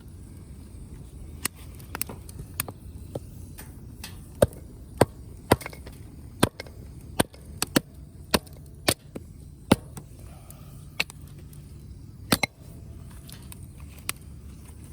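Wood fire burning: sharp, irregular crackles and pops from the firewood, clustered in the middle of the stretch, over a steady low rumble.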